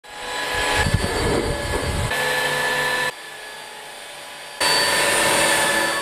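EZhome EC08 cordless wet-and-dry floor vacuum running: a steady rush of suction with a high motor whine. A low, uneven rumble comes in the first two seconds, and the sound drops and jumps back abruptly in loudness a few times.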